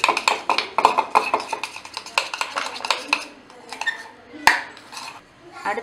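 Metal spoon scraping and clinking quickly against a stainless steel bowl as softened butter and grated garlic are stirred together. The stirring is busy for about three seconds, then quieter, with one sharp clink a little later.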